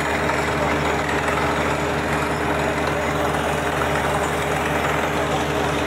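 Truck-mounted water-well drilling rig working the hole: a steady heavy drone from its engine and air compressor under a loud hiss of air and dust blasting out of the borehole.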